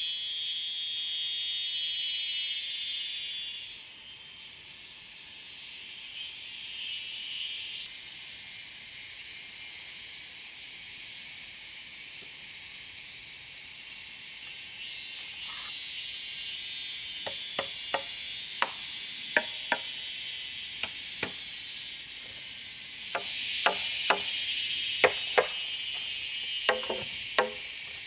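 Forest insects buzzing in a high, dense chorus that swells and fades. From about halfway through come a string of sharp wooden knocks as poles are handled and clack against each other.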